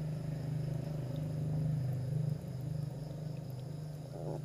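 A puppy's low, continuous rumbling growl while it is force-fed milk from a bottle it refuses, with a short higher whine near the end.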